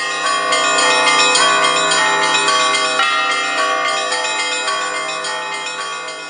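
Russian church bells rung by hand from clapper ropes: quick, dense strikes of several small bells over the steady hum of larger bells. The ringing swells in the first second or two, then slowly fades.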